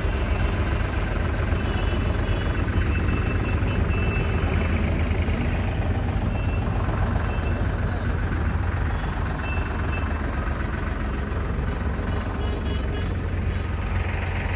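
Diesel tractor engine idling, a steady low rumble.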